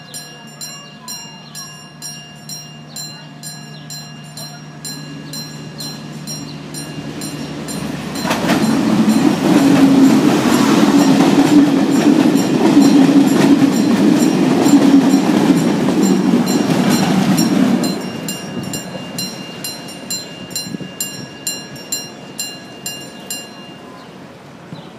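ADtranz locomotive-hauled intercity passenger train approaching and passing close by, loud from about 8 seconds in to about 18 seconds. Before and after it, a level-crossing warning bell ticks steadily about twice a second.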